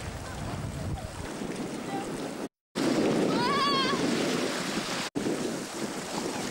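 Sea surf breaking over rocks and washing into a natural sea-water rock pool, with wind buffeting the microphone. The sound cuts out briefly twice; after the first cut, a little over two seconds in, the rush of water is louder and a short wavering cry is heard.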